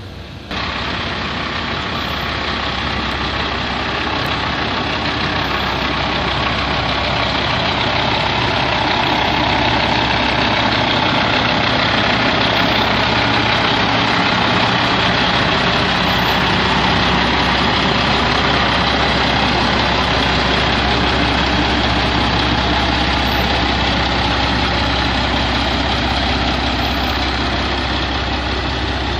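Kenworth cab-over semi tractor's diesel engine idling steadily, loud and close, starting abruptly about half a second in.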